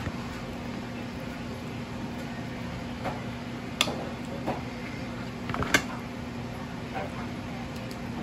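A spoon clicking sharply against a dinner plate a few times, twice more loudly, as broccoli and carrots are served onto it, over a steady low hum.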